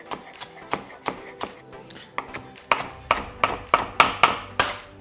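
Chef's knife chopping fresh basil on a plastic cutting board: a steady run of sharp taps, about four a second, that get louder about halfway through. Soft background music plays underneath.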